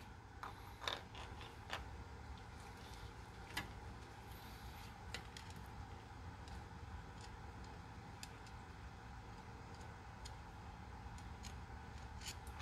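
Faint, scattered clicks and light metal taps of a screwdriver-type hand tool worked at a Helicoil thread insert in an aluminum intake plenum, over a low steady hum. The clearest clicks come about a second in and about three and a half seconds in.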